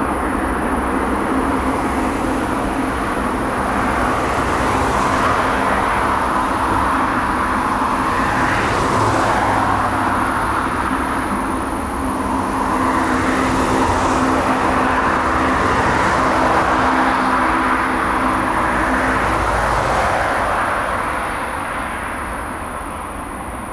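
Airbus A380's four jet engines at takeoff thrust on the takeoff roll: a steady, loud rushing noise with a low hum under it, fading over the last few seconds as the aircraft pulls away.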